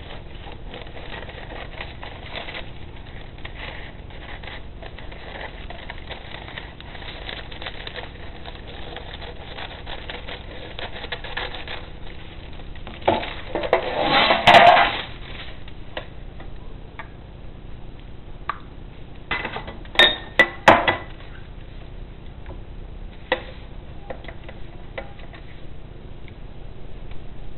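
Parchment paper crinkling and being cut with scissors. About halfway through it rustles loudly as the sheet is laid over a metal baking pan, followed later by a few sharp clinks of kitchen utensils.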